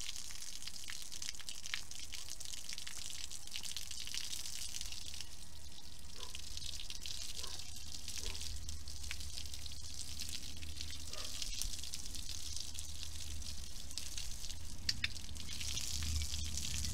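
Garden hose running, its water splashing over a horse's coat and onto wet paving stones in a steady spatter with drips.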